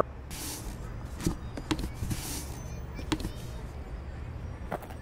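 A large cardboard box rustling and scraping as someone climbs out of it, with a few sharp knocks and shoe scuffs on brick paving, over a steady low hum.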